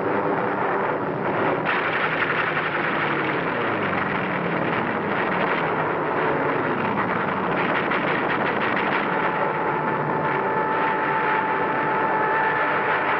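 Aircraft engines droning on a 1940s film soundtrack, with planes passing twice, their pitch sliding down as each goes by. A steady higher engine note joins about ten seconds in.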